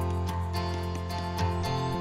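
Instrumental background music, with held pitched notes changing every half second or so over a low bass.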